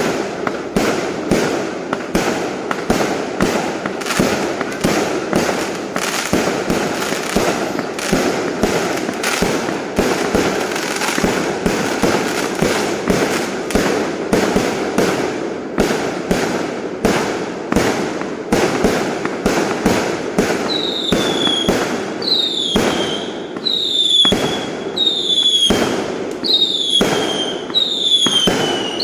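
Fireworks going off in a dense, continuous barrage of bangs and crackle. From about two-thirds of the way in, short whistles that fall in pitch join the bangs, roughly one a second.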